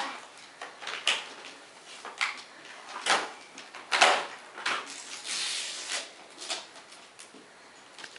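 Wrapping paper on a gift box rustling and tearing in short, irregular bursts as it is unwrapped by hand, with a longer crinkling rustle about five seconds in.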